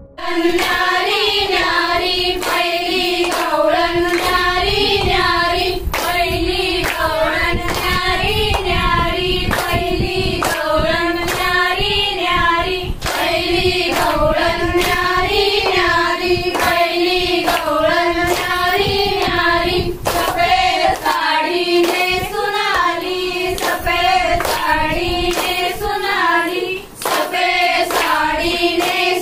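A group of women singing a traditional Marathi Gauri-Ganpati folk song together, clapping their hands in a steady rhythm.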